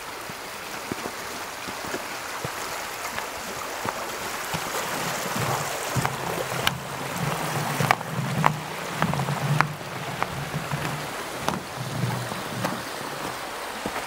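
A mountain stream rushing steadily, with a few sharp taps in the middle and a faint low hum that comes and goes.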